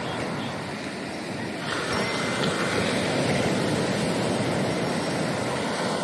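Ocean wave breaking and washing up the beach: a steady rush of surf that grows louder about two seconds in.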